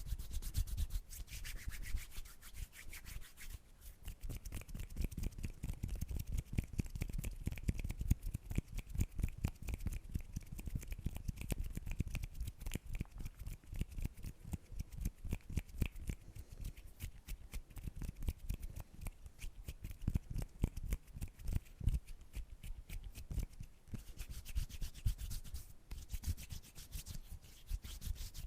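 Hands rubbing together in quick, continuous strokes.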